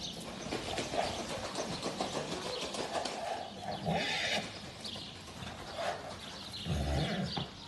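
A grey horse cantering loose on a sand arena: a run of irregular hoofbeats in the sand, with a short hiss-like burst about four seconds in and a fuller, lower sound from the horse near the end.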